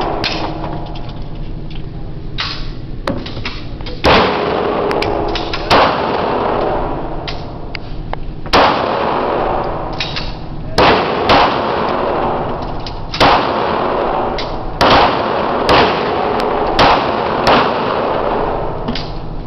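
H&K .40-calibre pistol fired at a range: about a dozen single shots at an irregular pace, each ringing out briefly, coming faster in the second half, with fainter shots in between.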